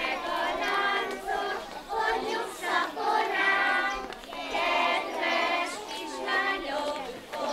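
A group of young children singing a Hungarian folk song together in unison, held sung notes following one another without a break.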